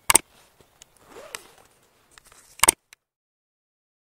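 Two sharp mouse-click sound effects, about two and a half seconds apart, from an animated like-and-subscribe overlay, with fainter rustling sounds between them, then dead silence.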